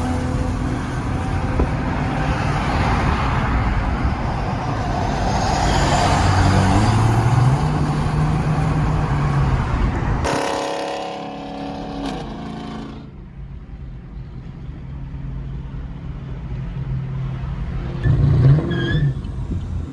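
Car engine revving hard, rising in pitch, amid a loud rush of noise for about ten seconds. Then an abrupt change to a quieter, steady low engine hum.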